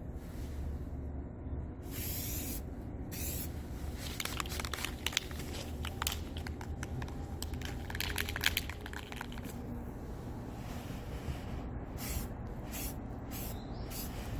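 Aerosol spray-paint can sprayed in short bursts of hiss, several seconds apart, with light clicks and rustles between them, over a steady low hum.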